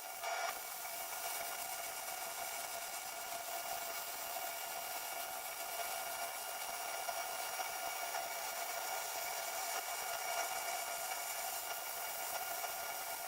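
Arc welding on steel plate: a steady hiss with light crackle as a weld bead is run.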